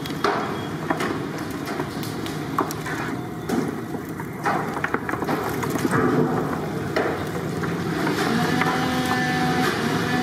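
Raw chicken pieces being mixed by hand with thick tandoori marinade in a large steel pan: wet squelching with irregular knocks and clatters of the pieces against the metal. A steady humming tone joins in near the end.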